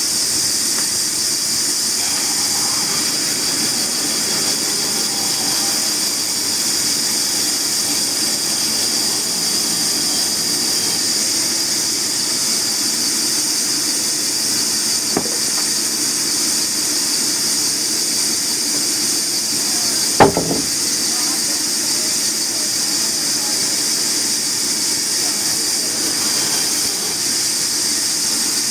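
Sawmill saw cutting timber: a steady high hiss over a low hum. A sharp click comes about 15 seconds in, and a single loud knock about 20 seconds in.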